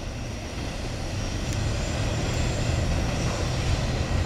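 Steady low rumble of a double-stack intermodal freight train rolling away into the distance.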